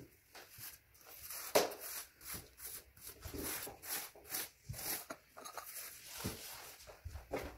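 Wide paint brush scrubbing paint onto rough brick: a run of short scratchy strokes, about two or three a second, with one louder stroke about a second and a half in.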